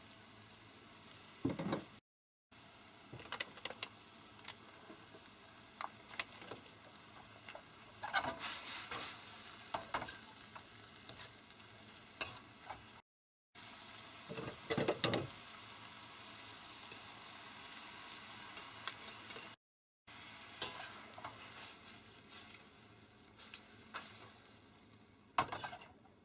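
Food frying in a pan with a steady low sizzle, stirred with a utensil that scrapes and clicks against the pan now and then. The sound cuts off abruptly three times, as short clips are joined together.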